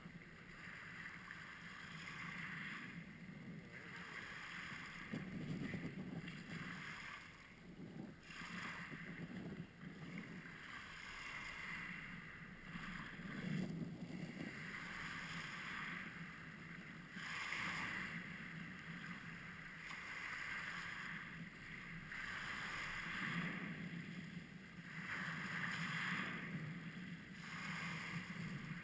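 Small lake waves breaking and washing up over a pebble beach, each surge of water and rattling stones swelling and fading every few seconds.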